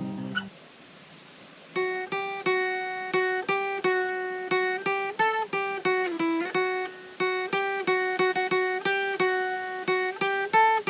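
Acoustic guitar: a held chord dies away, a brief pause follows, and then chords are strummed in a quick, steady rhythm, about three strums a second.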